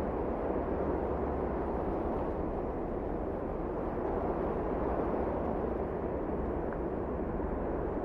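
Wind blowing across the microphone: a steady, low rushing noise with no other distinct sound.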